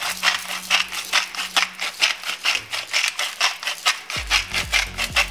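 Salt shaker shaken rapidly over a pot of vegetables, its grains rattling in quick even strokes, about four to five a second, stopping near the end.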